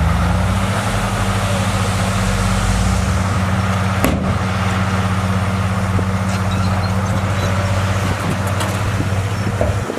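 Heavy diesel engine of earthmoving equipment running steadily, with a single knock about four seconds in; the low engine note drops away just before the end.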